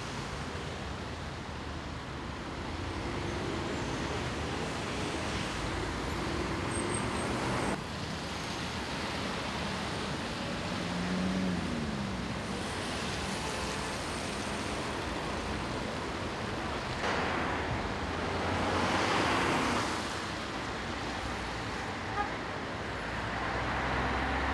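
Road traffic: a steady wash of car and truck engines and tyres, with one vehicle passing louder about three-quarters of the way through.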